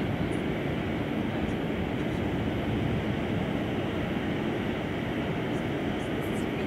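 Steady low rushing rumble with no distinct events, and a few faint high ticks.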